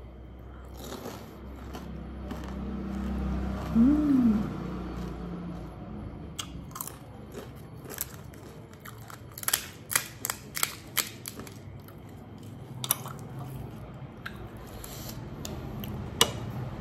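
Close-up chewing of a panipuri, the crisp fried puri shell crunching in a run of sharp cracks, thickest between about nine and eleven seconds in. A short hummed 'mm' rises and falls about four seconds in.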